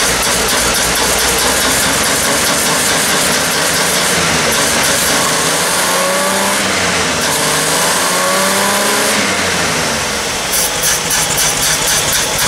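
1964 GMC pickup's 305 V6 engine running after some 15 years of sitting, revved up and back down twice through the middle, then dropping back to an uneven, pulsing idle near the end.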